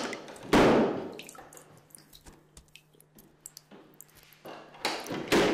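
Two loud echoing impacts, one about half a second in with a long fading tail and another near the end. Between them come sparse water drips over a faint steady low hum.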